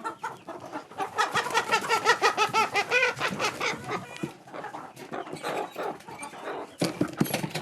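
Hens squawking in alarm as they are caught and handled: a fast, harsh run of repeated calls starting about a second in and lasting a few seconds, followed by softer calls and a few knocks and rustles near the end.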